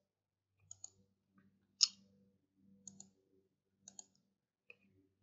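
Computer mouse clicking, about eight short clicks, mostly in quick pairs, with one louder single click about two seconds in.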